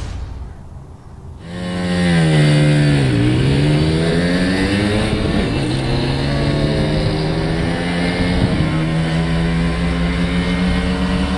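A small two-stroke moped engine comes in about a second and a half in, revving hard. Its pitch drops for a moment, then climbs back and holds at a high, steady rev.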